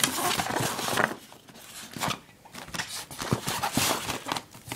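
Scraping and rattling of a cleaning rod worked in an airsoft AK-47 to unjam it, loudest in the first second. Scattered clicks and knocks of the gun being handled follow.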